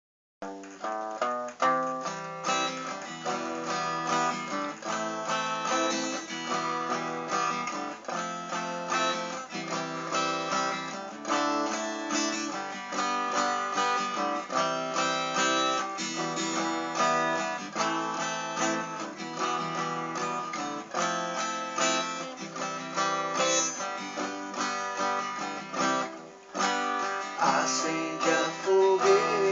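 Instrumental introduction to a forró song, led by acoustic guitar strumming and picking, with a brief drop in the music about 26 seconds in.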